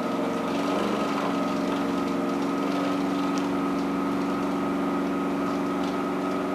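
Bottom-load water cooler's bottle pump running with a steady hum while the cold side is primed, drawing water up from the bottle. It is noisier at this stage, before the water reaches it.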